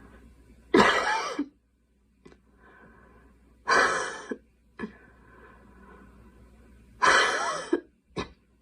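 A girl coughing: three separate coughs about three seconds apart, the second and third each followed by a short, fainter sound.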